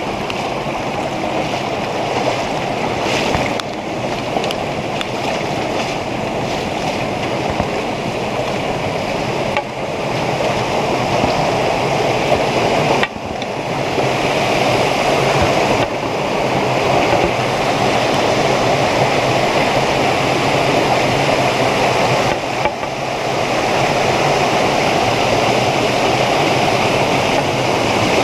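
Spring-fed stream rushing and splashing down small waterfalls over limestone: a steady, loud rush of water that shifts abruptly in level a few times.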